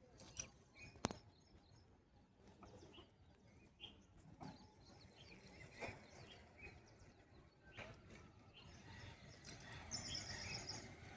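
Faint outdoor ambience with small birds chirping and a few sharp ticks, ending in a short run of rapid high-pitched chirps.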